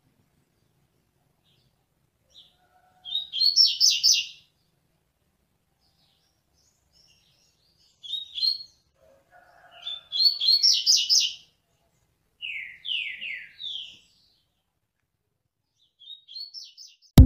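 Double-collared seedeater (coleiro) singing its tui-tui style song: five short phrases of rapid high notes a few seconds apart, one of them three down-slurred notes about three-quarters of the way through.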